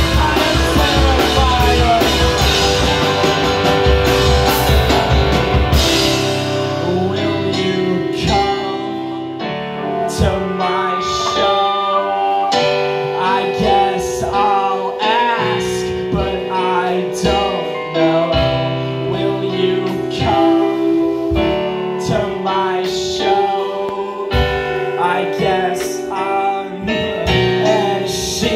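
Live rock band with electric guitars, keyboard and drum kit playing an instrumental passage. The full band with heavy bass and drums plays for about six seconds, then the low end drops out, leaving held chords, a bending melodic line and regular drum hits.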